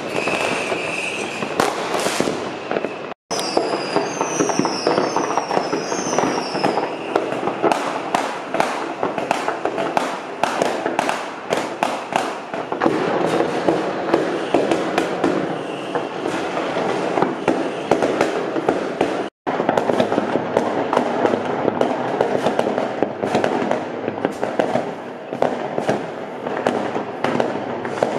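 New Year's Eve fireworks: a dense, continuous crackling and banging of firecrackers and rockets. A few short whistling glides come about four seconds in. The sound drops out for an instant twice, where the recording is cut.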